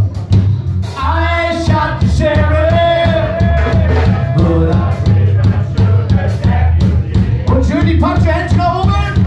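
Rock band playing live, with bass and drums going steadily and a singer's voice over them through most of the stretch.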